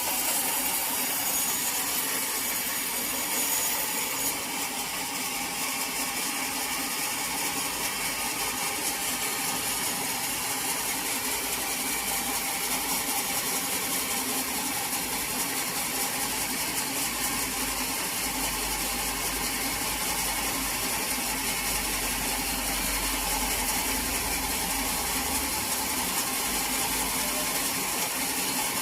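Sawmill machinery running steadily, a dense mechanical rattle that does not let up.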